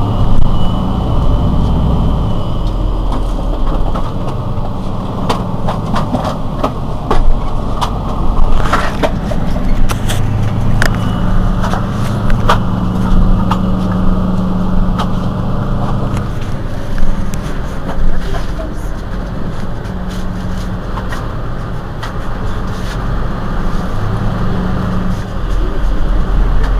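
Mercedes-Benz Citaro C2 city bus's diesel engine idling at a stop: a steady low hum whose level shifts every few seconds. Scattered clicks and knocks come in over several seconds, with a short hiss around nine seconds in.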